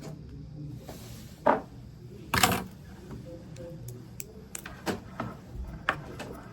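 Handling noise from an Ethernet cable being worked by hand while its outer jacket is stripped and its wires readied: a series of sharp clicks and rustles, the loudest about two and a half seconds in.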